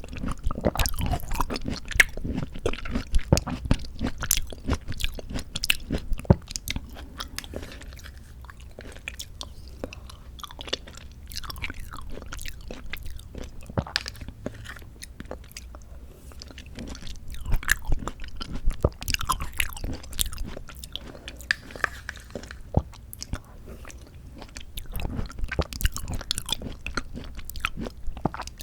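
Close-miked chewing and biting of canned mandarin orange segments from a fruit cup, a dense run of small wet clicks. It is busiest in the first several seconds, quieter through the middle, and picks up again in two spells near the end.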